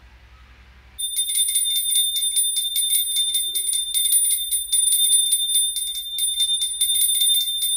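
Small brass pooja hand bell rung rapidly and without a break, starting about a second in, as the sweet is offered to the deity.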